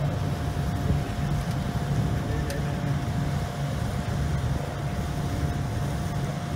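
Car ferry's engines running steadily underway: a continuous low drone with a thin steady whine above it.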